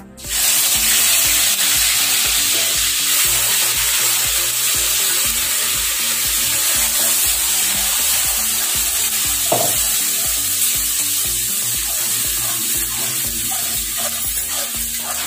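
Wet ground masala paste sizzling hard in hot oil in a steel kadhai, stirred with a spatula; the sizzle starts suddenly as the paste hits the oil and then holds steady.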